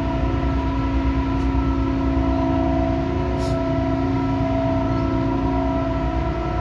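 A ship's machinery droning steadily: several held tones over a low rumble.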